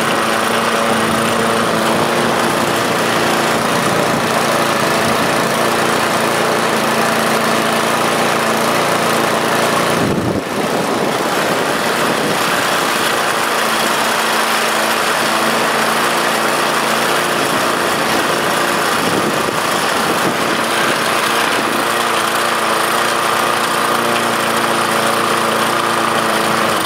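Briggs & Stratton Titanium 46S push mower's engine running at a steady, even speed, dipping briefly about ten seconds in. It is running really well and holding its speed now that the governor flap and springs move freely, after it had been running too fast.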